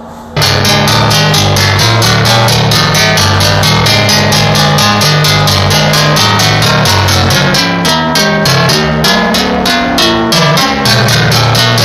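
Music with a fast, steady beat and a bass line, starting abruptly about half a second in.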